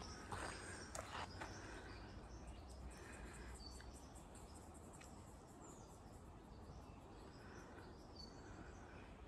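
Faint bushland ambience: a couple of footsteps on the track in the first second or so, then a fine, even ticking of insects high up, with a few short bird chirps scattered through.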